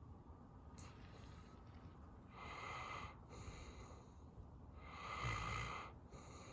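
Sleeping dog breathing slowly and heavily in its sleep: two soft, airy breaths about two and a half seconds apart, the second with a faint snore under it.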